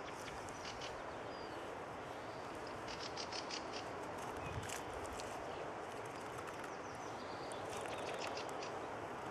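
Sami leuku knife shaving curls down a wooden stick to make a feather stick: a few spells of short, quick scraping strokes over a steady outdoor hiss.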